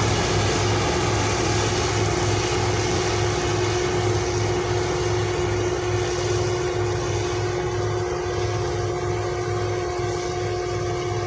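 Deutz-Fahr C 5305 combine harvester running steadily while harvesting wheat: a held mechanical hum over a low throb that pulses about three times a second, getting slightly quieter toward the end.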